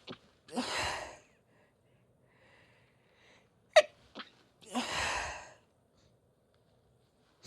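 A woman sneezing, set off by chhinkni sneezing powder: one sharp, loud sneeze about four seconds in, with long breathy rushes of air about half a second and five seconds in.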